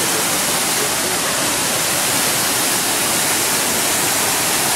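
Waterfall cascading down rock ledges into a pool: a steady rushing hiss of falling water.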